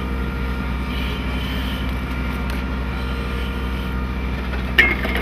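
Engine running steadily with an even, low hum.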